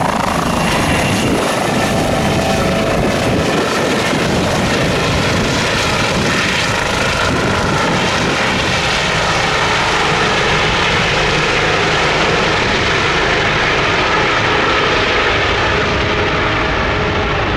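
Rescue helicopter lifting off and flying away: a steady, loud din of rotor and turbine, whose high whine fades from about halfway through as it moves off.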